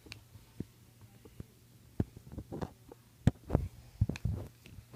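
Handling noise: scattered soft thumps and taps as a small plastic toy figure is moved about over a cardboard playset book and the phone is handled, the loudest a little after three seconds in, over a faint steady low hum.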